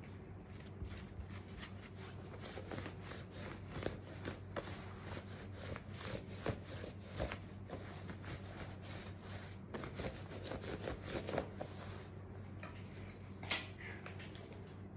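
Soaked cotton sweatshirt and sweatpants being rubbed and squeezed by hand: soft wet squelching and rustling with many small crackles, over a low steady hum.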